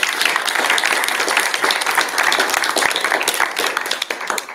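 Audience applauding: dense, steady clapping that stops abruptly near the end.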